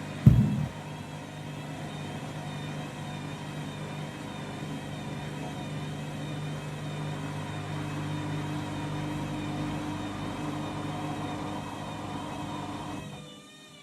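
Candy washing machine's drum spinning an overloaded, badly unbalanced whites load on an intermediate spin: a steady motor hum and wavering whine, with one loud thump just after the start. The spin sound drops away near the end.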